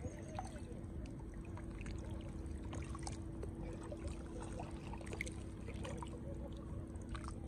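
Small splashes and dribbling water as a small fish on a fishing line is pulled up through the lake surface and lifted out, with light scattered ticks.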